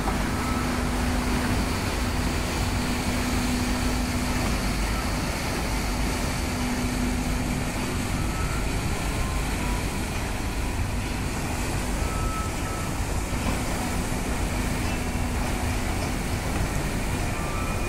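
Engines and propeller wash of the river cruise ship Volga Star as it pulls away from the quay: a steady low rumble with churning water, and a low hum that comes and goes.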